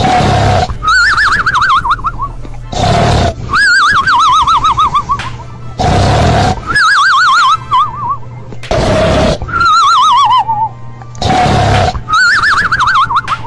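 Snoring: a loud rasping snore on each breath in, followed by a warbling, falling whistle on each breath out, repeating in a steady cycle about every three seconds, five times over.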